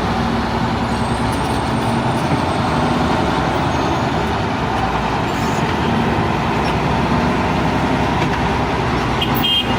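Steady road traffic noise, with the continuous running of motor vehicle engines.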